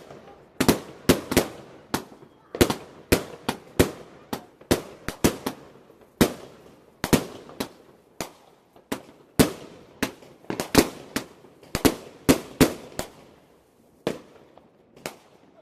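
Consumer firework cake (multi-shot barrage) firing: a rapid, irregular string of sharp bangs, about two a second, each with a short echoing tail, thinning out near the end.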